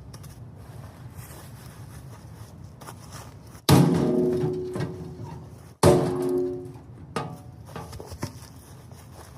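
Two loud metallic strikes on a small steel safe about two seconds apart, each ringing out for about a second, followed by a few lighter knocks as the safe is forced open.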